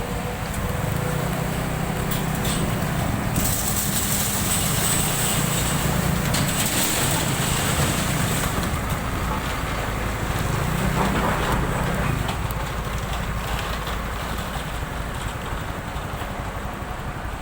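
Suzuki Skydrive Crossover scooter's small single-cylinder four-stroke engine running steadily as it is ridden off-road, with wind noise on the microphone.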